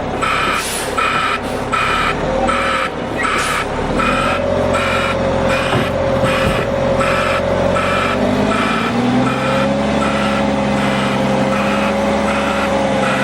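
Heavy vehicle's backup alarm beeping steadily about twice a second over its running engine, the engine note shifting about eight seconds in.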